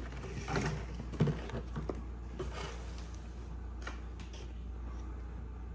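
Light clicks and taps of hard clear plastic protector cases holding boxed action figures being handled and set on a table, most of them in the first two seconds, over a steady low hum.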